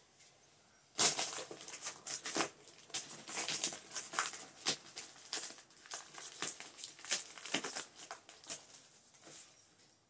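Goldfish crackers snack bag being crinkled and folded closed by hand: a busy run of sharp crackles that starts abruptly about a second in and tapers off near the end.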